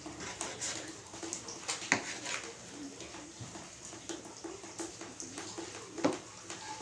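Kitchen knife cutting and scraping raw chicken on a plastic cutting board: small scrapes and taps, with two sharper knocks of the blade on the board, about two seconds in and about six seconds in.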